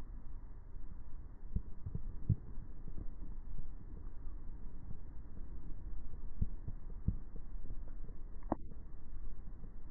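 Muffled underwater rumble with scattered soft low thumps and one sharper click near the end, as picked up through an action camera's waterproof housing while spearfishing.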